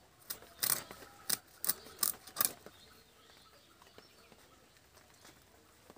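Rohu fish being cut: a quick run of about seven sharp clicks and knocks over the first two and a half seconds.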